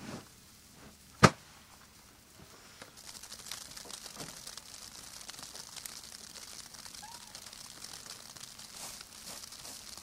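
A single sharp click, then from about two and a half seconds in a steady, fine crackling hiss of heavy, wet snow coming down.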